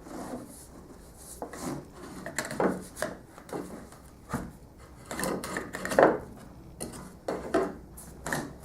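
Hard plastic parts rubbing, scraping and knocking in irregular strokes as a small vacuum hose is pushed and twisted onto a random orbital sander's dust port, a loose fit.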